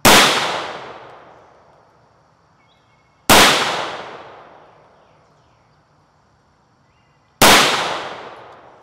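Three shots from a 5.56/.223 AR-15 rifle fitted with a muzzle brake, about three and four seconds apart; each sharp report rings out and fades over a second or two. They are fired under a low wooden shelter roof that throws the blast back down on the shooter.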